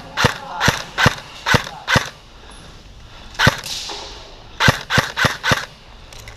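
Airsoft guns firing single shots: five at about two a second, one more about halfway through, then four quick shots near the end.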